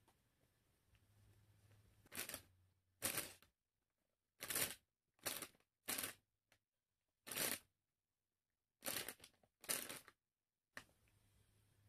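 A series of about eight short rustles, irregularly spaced, some coming in quick pairs, with near silence between them.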